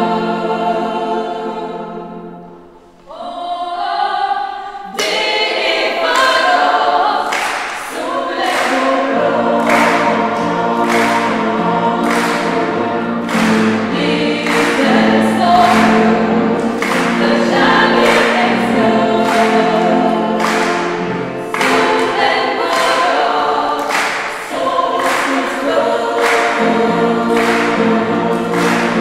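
A woman singing a ballad into a microphone over backing music, amplified in a reverberant church. The music fades briefly near the start, then comes back in with a steady beat.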